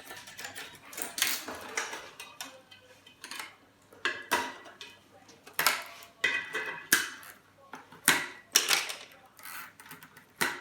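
Irregular metallic clanks and clinks of metal parts and tools as an old Dell monitor is cut and broken apart for scrap, each knock ringing briefly.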